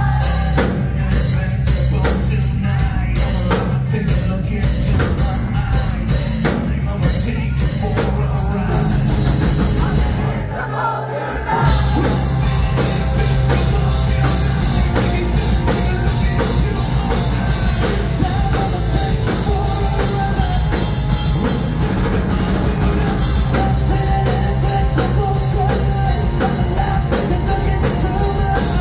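Live rock band playing: a man singing over distorted electric guitar, bass guitar and drum kit. About eleven seconds in, the bass and drums drop out for about a second, then the full band crashes back in.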